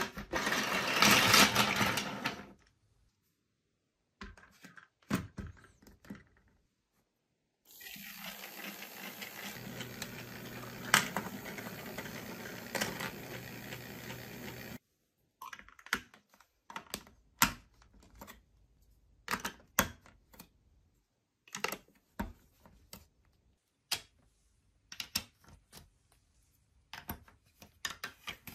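Large plastic building blocks clatter onto a table, followed by a few clicks. A battery-powered spiral marble elevator's motor then runs with a steady whir for about seven seconds and cuts off. After that comes a long run of sharp plastic clicks as big bricks and curved track pieces are pressed onto a baseplate.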